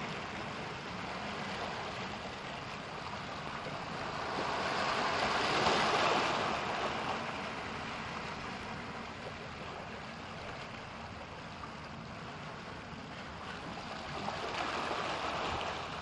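Ocean surf washing on a beach over a steady breeze, the wash swelling louder about five seconds in and again near the end.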